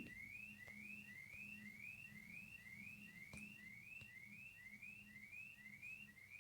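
Car alarm sounding faintly, a short rising whoop repeated evenly about twice a second.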